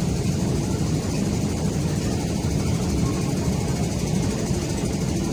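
Steady low mechanical rumble of a running escalator, unchanging throughout.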